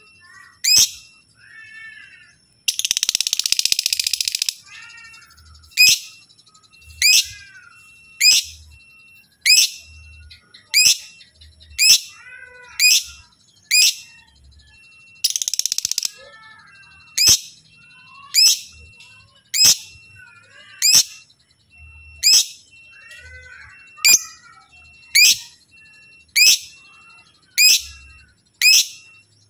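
Lovebird calling: sharp, high chirps repeated about every second and a half, with softer twittering between them and two loud bursts of rapid chattering (ngekek), the longer one about three seconds in and a shorter one about fifteen seconds in.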